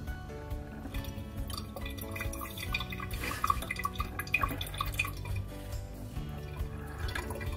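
Leftover water dripping from a mixer tap's body into the sink as its valve cartridge is unscrewed with the supply shut off, with short plinks clustered in the middle seconds. Background music plays throughout.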